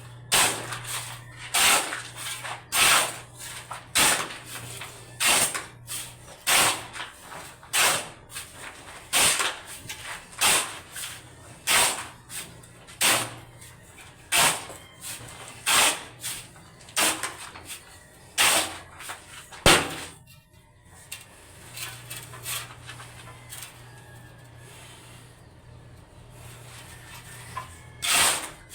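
Hand tool scraping on wet mortar or concrete in repeated strokes, about one a second, as in mixing or spreading cement by hand. The strokes stop about twenty seconds in, leaving a low steady hum.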